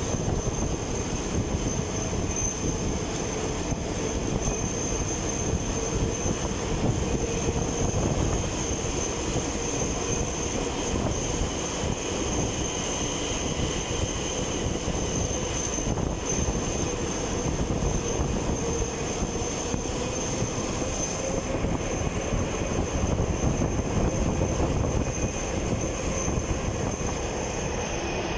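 Madrid Metro train running at speed through a tunnel, heard from aboard: a steady rumble of wheels on rail with a steady high whine over it. Another metro train passes close by on the adjacent track about halfway through.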